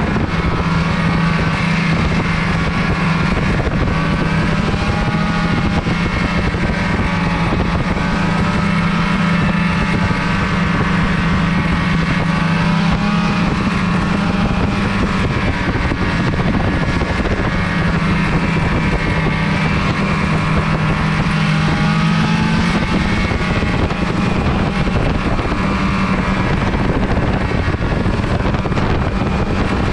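Snowmobile engine running steadily under way on a trail, its drone shifting slightly in pitch with the throttle, with some wind on the microphone.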